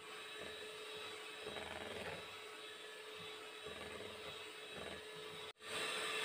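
Electric hand mixer whirring steadily as its beaters cream butter in a plastic bowl. The sound cuts out for an instant about five and a half seconds in and comes back louder.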